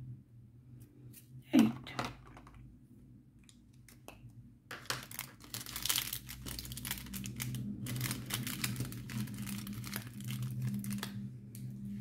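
Small plastic bags of diamond-painting drills crinkling, with the drills clicking and rattling as the bags are handled, most densely through the second half. A single thump comes about a second and a half in.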